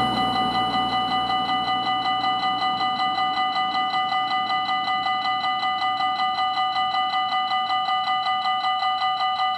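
Belgian level crossing warning bell ringing steadily at a fixed pitch, about four strikes a second, signalling that a train is approaching and the barriers are about to lower.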